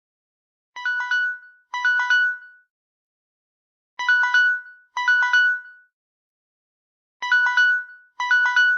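Mobile phone alarm going off: pairs of short electronic beeping bursts, each a quick run of bright notes, three pairs about three seconds apart with silence between.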